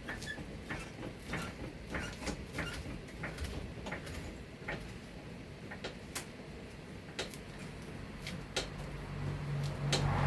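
Jacking up a car: irregular sharp metallic clicks and knocks, roughly one or two a second, from the jack and its handle being worked. A steady low hum comes in near the end.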